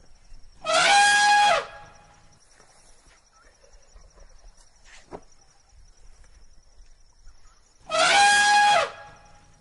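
Elephant trumpeting: two short, brassy trumpet calls, each about a second long, one near the start and a matching one near the end.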